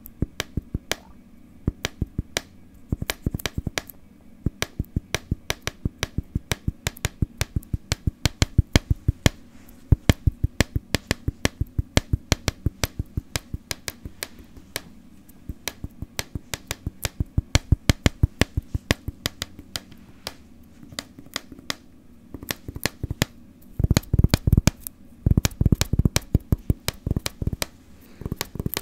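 Fingers tapping rhythmically on objects for ASMR, a steady run of crisp taps at about four a second. Near the end comes a quicker, heavier flurry.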